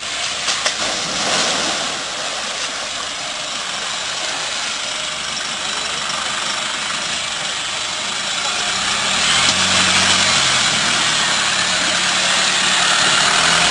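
Troller T4 4x4 engine running as the vehicle drives through a muddy puddle, over a steady noisy wash of water and mud. The engine grows louder from about nine seconds in.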